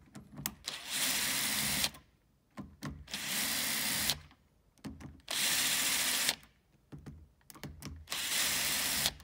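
Cordless drill-driver with a Torx 20 bit running four times, about a second each, backing out the four screws that hold a door's lock cylinder. Small clicks sound between the runs.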